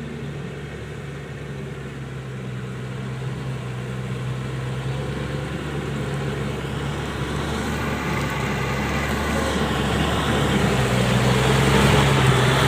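Kubota 105 rice combine harvester's engine running steadily, growing gradually louder.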